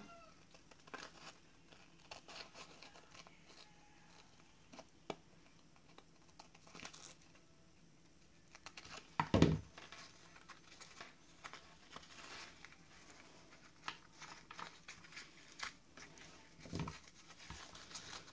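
Scissors snipping a thin paper napkin and the napkin rustling and crinkling as it is trimmed along the edge of a paper tag: faint, scattered small snips and crinkles, with a louder knock about nine seconds in and another near the end.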